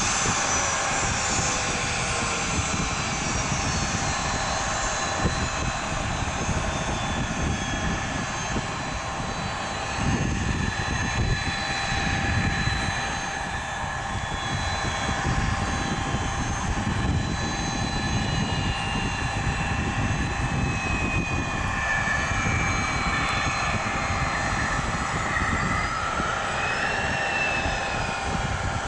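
Gulfstream G200 business jet taxiing, its two Pratt & Whitney Canada PW306A turbofans running steadily at low taxi power: a continuous jet whine over a rumble. A few of the engine tones glide in pitch in the second half.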